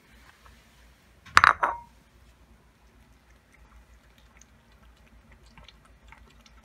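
Ceramic bowl set down on a tile floor: two quick clacks and a short ring about a second and a half in. Then faint, irregular small clicks of a cat eating soft fish from the bowl.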